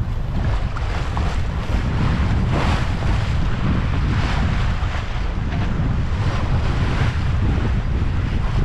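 Wind buffeting the microphone over water rushing and splashing along a sailboat's hull while under sail, the hiss of the wash swelling and easing every second or two.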